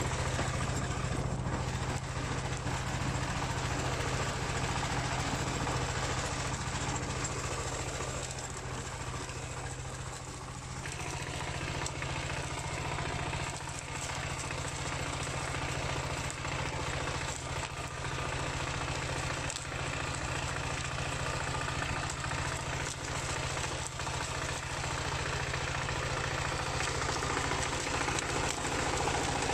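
Dongfeng single-cylinder diesel engine of a two-wheel hand tractor running steadily with a fast, even chugging, easing slightly for a moment about ten seconds in.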